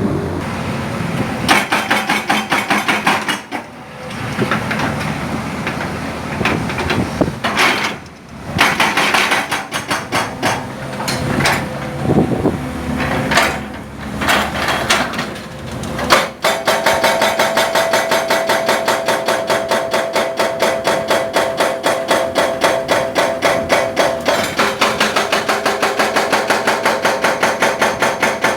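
Excavator-mounted hydraulic breaker hammering on a concrete pole: fast repeated blows in bursts with short pauses, then running continuously and steadily through the second half.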